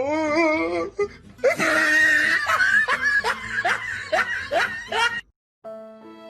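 A person laughing hard in repeated falling bursts that stop abruptly just after five seconds in; near the end, soft music with long held notes begins.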